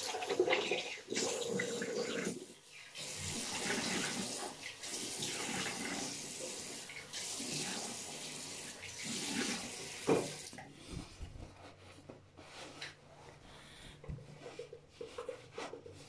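Bathroom sink tap running while water is splashed onto the face with the hands to rinse off a facial cleanser. The steady flow stops about ten seconds in, leaving fainter, irregular splashes and drips.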